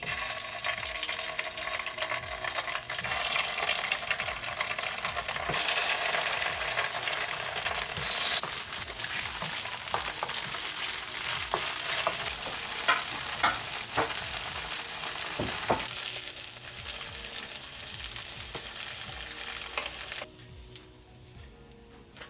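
Food sizzling in a hot frying pan with occasional sharp ticks and scrapes from stirring. The sizzle cuts off suddenly a couple of seconds before the end.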